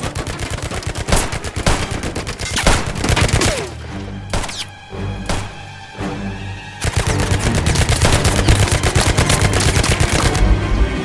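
Rapid, dense gunfire sound effects, many shots in quick succession like a fusillade, over dramatic action film score. About three and a half seconds in, the shooting drops out for roughly three seconds, leaving the music, then the rapid fire starts again.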